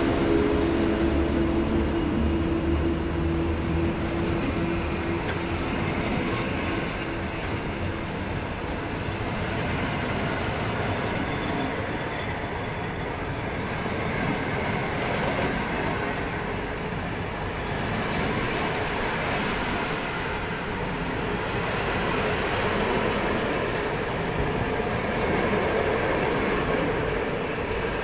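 PKP Intercity passenger coaches rolling past a platform: a steady rumble of wheels on rail with a hiss, while a steady hum fades out in the first few seconds.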